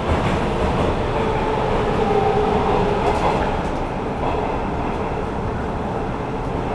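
Hanshin 9300 series electric train running through the underground section, heard from inside the car: a steady rumble of wheels on rail, with a faint whining tone that slowly drifts in pitch.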